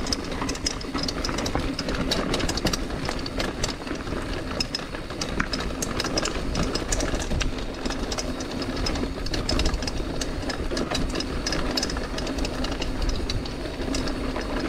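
Mountain bike rolling fast over a dirt trail: steady tyre noise and low wind rumble on the mic, with frequent small clicks and rattles from the bike over the bumps.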